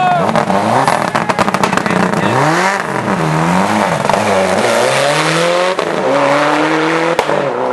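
Rally car engine revving hard through a corner, its pitch dipping and rising with the throttle, with a rapid series of sharp cracks about half a second in. It then climbs through the gears as it pulls away, its rising pitch broken by two gear changes.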